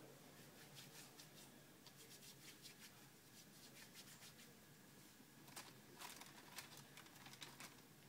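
Faint rustling of hands being rubbed together, then denser rustles and ticks from a plastic-wrapped package being handled near the end.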